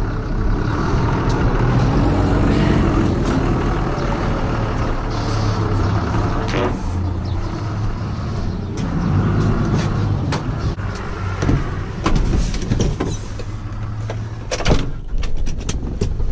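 A vehicle engine idling steadily, with a low hum. A few sharp knocks and clicks come near the end.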